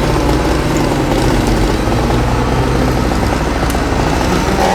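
Heavy engine idling steadily with a low, even hum.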